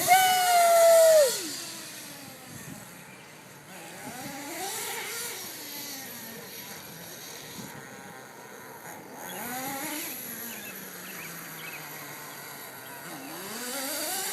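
Redcat Racing Volcano S30 1/10-scale RC truck's small nitro engine revving. A loud high whine rises and holds for about a second at the start, then drops away. It is followed by several quieter rises and falls in pitch.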